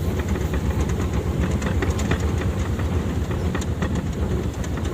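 Heavy off-road vehicle's engine running steadily with a deep rumble, its body rattling and clanking over and over as it jolts along a rough track.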